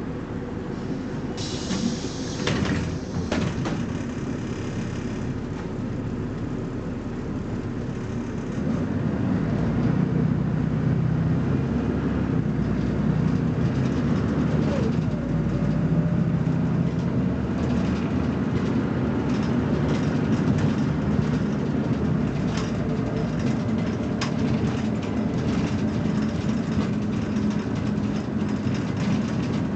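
BMC Belde 220-SLF city bus: a short hiss about two seconds in, then about nine seconds in the diesel engine comes up under heavy load as the bus accelerates, with the kickdown under full throttle, and keeps running loud and steady.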